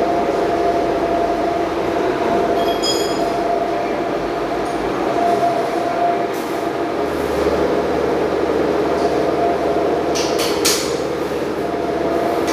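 Steady machine noise with a constant hum, and a few metal clinks about three seconds in and again near the end.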